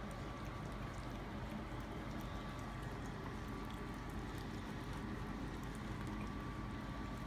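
Maltese puppies eating soft wet dog food from a dish, with faint wet smacking and licking, over a steady background hum.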